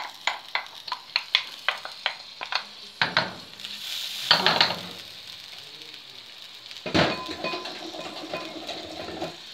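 Chopped onions sizzling in melted margarine and coconut oil in a wok, stirred with a wooden spatula. Quick taps of the spatula against the pan come through the first three seconds, then a louder scrape, then a steady hiss of frying.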